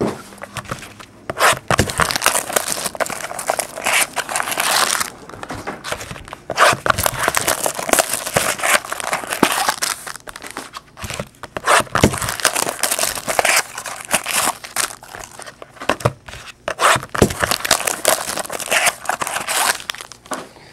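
Foil wrappers of trading-card packs crinkling and rustling as hands pull them out of a box and handle them, with many sharp crackles along the way.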